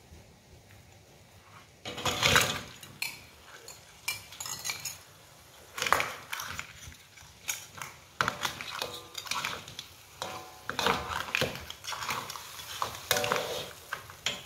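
Crabs tumbling into an aluminium wok with a loud clatter about two seconds in, then a metal ladle knocking and scraping against the wok in irregular strokes as the crabs are stirred through the sauce.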